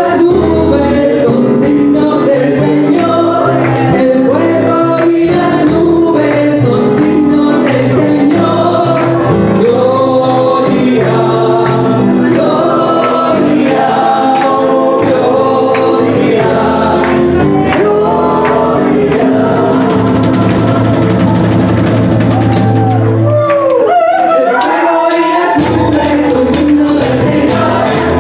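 Live worship music: a group of singers at microphones sings a lively gospel song together over a band with a low bass line and a steady percussive beat. The bass drops out for a moment about three quarters of the way through, then the beat comes back in.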